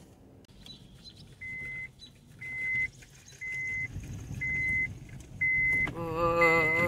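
Car warning chime: a steady high electronic beep repeating about once a second, six times, over a low engine rumble. Near the end a louder pitched sound with a wavering pitch starts.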